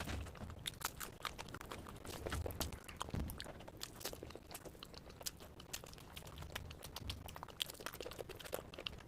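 A person chewing crunchy food close to the microphone: many quick, irregular crisp crunches with soft low thuds of the jaw.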